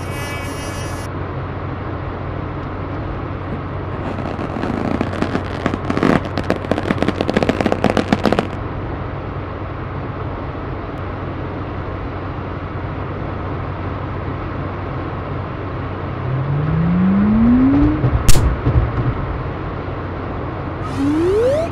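Steady low car-interior engine drone with a hum. About four seconds in comes a few seconds of rapid crackling; near the end there is a rising whistle-like glide, a sharp hit, and a second, quicker rising glide.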